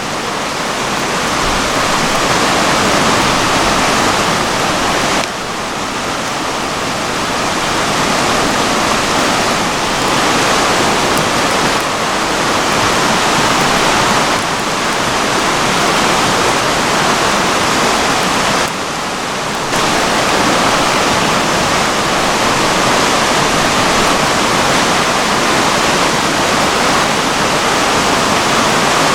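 Steady rush of flowing river water, with brief dips in level about five seconds in and again around nineteen seconds.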